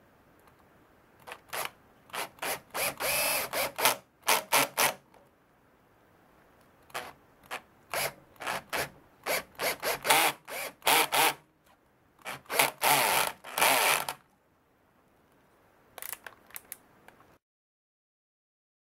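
Cordless drill driver with its clutch set to 5, the clutch slipping and clicking in rapid rattling bursts, again and again, as the wood screw stops turning. The torque setting is too low to drive the screw fully home.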